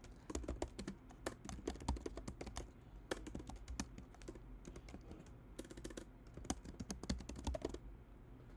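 Typing on a computer keyboard: quick runs of key clicks in three bursts, with short pauses between them.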